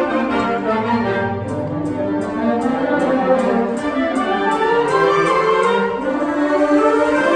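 School band playing a concert piece: sustained chords with parts rising and falling through the ensemble. From about a second and a half in until about six seconds, a bright percussion tap keeps an even beat of about three a second.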